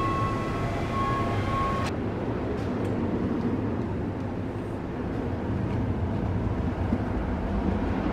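Steady low rumbling background noise with a few faint clicks, heard while passing through a revolving door. Held tones sound during the first two seconds and cut off abruptly.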